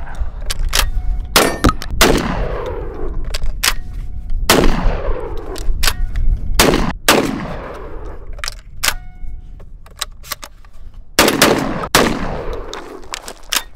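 Gen 1 Beretta 1301 Tactical semi-auto shotgun firing a string of shots, several in quick pairs, each trailed by a long fading echo. Shorter, sharper clicks fall between the shots.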